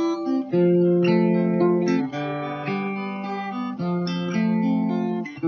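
Acoustic guitar strummed, playing the accompaniment chords in the key of C, with notes held and changing about once a second.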